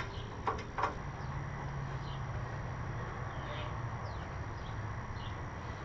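Steady low background hum with two light clicks about half a second in and a few faint high chirps.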